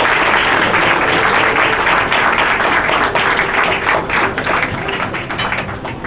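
Audience applauding: a dense patter of many hands clapping that thins out and dies away over the last couple of seconds.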